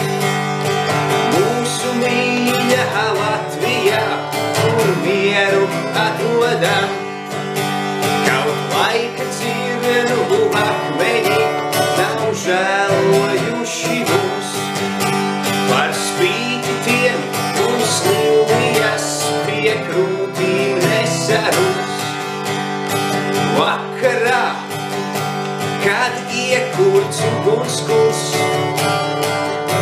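Acoustic guitar strummed through a simple chord progression, with a man singing a Latvian folk-style song along with it.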